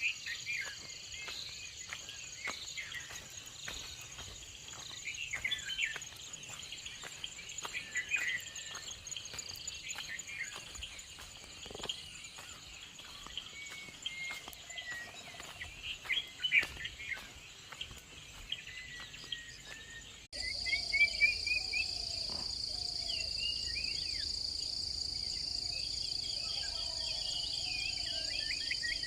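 Morning chorus of songbirds chirping and warbling over a steady high drone of insects, crickets or cicadas. About two-thirds of the way through the insect drone turns louder and steadier, and near the end a bird gives a fast repeated trill.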